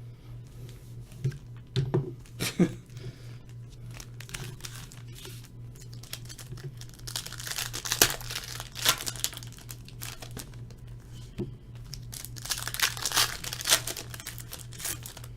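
Foil trading card pack wrappers being torn open and crinkled, with scattered sharp taps. The crinkling is busiest around the middle and again near the end, over a steady low hum.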